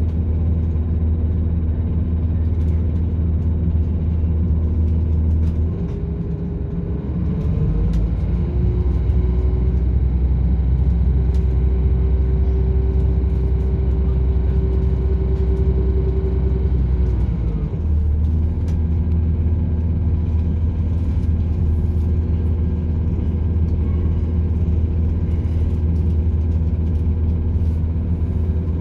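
Onboard sound of a British Rail Class 170 Turbostar diesel multiple unit under way, its underfloor diesel engine running with a steady low note. About six seconds in the note rises and grows louder, holds higher, then drops back to the earlier note about eighteen seconds in.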